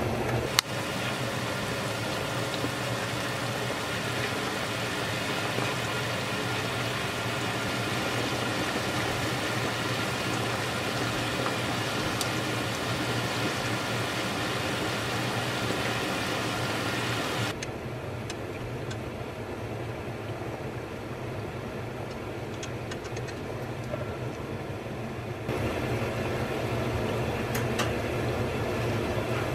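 Battered chicken pieces deep-frying in hot oil, sizzling and bubbling steadily, with a few light clicks of wooden chopsticks turning them. The sizzle turns duller about two-thirds of the way through and brightens again near the end.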